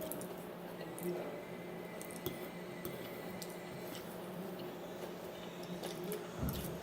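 Faint eating sounds: soft wet chewing of fried chicken taquitos, with scattered small clicks, over a steady low hum.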